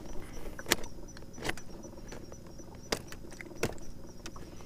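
A handful of sharp, irregularly spaced clicks and knocks from gear being handled on the deck of a jon boat, over a faint steady hum.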